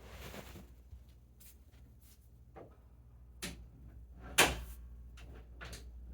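A few separate knocks and clicks in a quiet room, the loudest a sharp knock about four and a half seconds in, after a softer one a second earlier.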